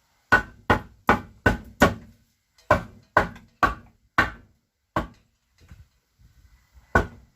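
Hammer blows on wood, knocking a new board into place: a quick run of five strikes, a short pause, four more, then two single knocks spaced out.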